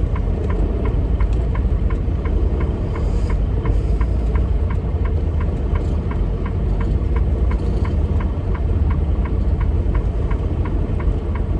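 Heavy diesel engine idling with a steady low rumble, with a crisp, regular tick about three times a second over it.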